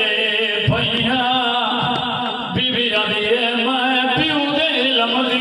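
A man's voice chanting a mournful Shia majlis recitation in a drawn-out melodic style, amplified through a microphone.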